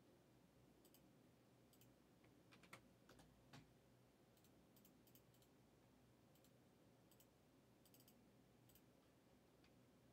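Near silence with faint, irregular clicking at a computer, a little louder about three seconds in.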